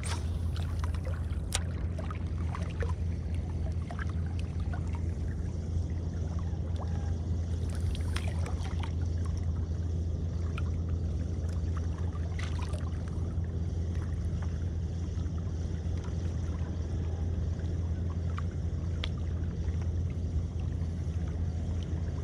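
Steady low drone, with scattered light clicks from a spinning reel and rod as a lure is cast and reeled back in.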